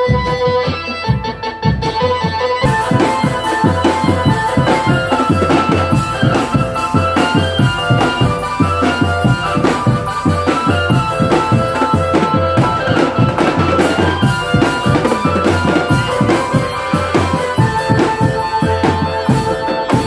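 Drum band playing: bass drums and snare and tenor drums beat a steady, fast rhythm under a sustained melody line.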